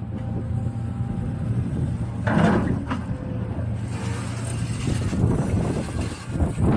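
A motor vehicle's engine running steadily, with two loud rushing bursts about two and a half and three seconds in.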